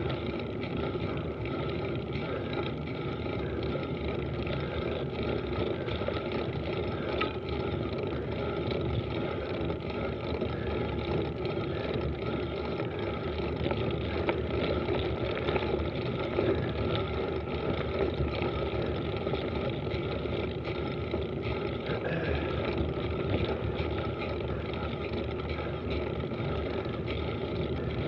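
Steady rushing noise of a mountain bike descending a dirt road at speed: tyres rolling over packed dirt and loose gravel, with wind on the microphone.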